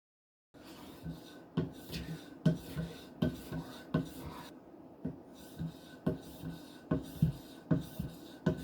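A knife blade being stroked on a 5-micron sharpening stone: a steady run of rasping strokes, each ending in a light knock, about two a second, starting about half a second in.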